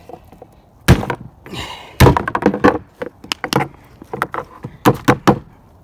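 Aerosol whipped-cream can (Reddi-wip) giving a short sputtering hiss about a second and a half in, among a run of sharp knocks and clacks from the can being handled.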